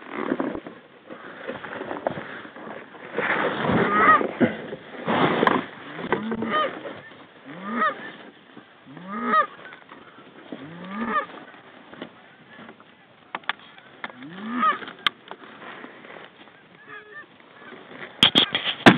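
Goose honks: a series of single calls, each rising in pitch at its start, coming every second or two, with a louder stretch of rustling a few seconds in and a few sharp clicks later.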